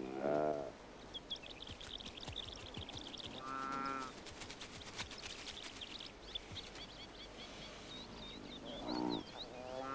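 Saiga antelope calling: a few short, pitched calls about half a second in, around four seconds and twice near the end, with faint high chirping running between them.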